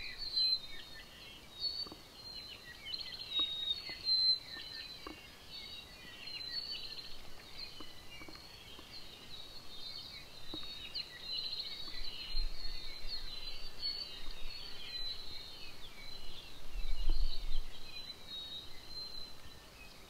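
A chorus of forest birds: many short chirps and whistles overlapping without a break. Two brief low rumbles come in around the middle and again a little later.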